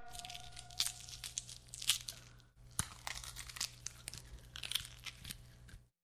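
Foley sound effect of irregular crunching and tearing crackles, sharp snaps scattered unevenly, over a faint steady low hum.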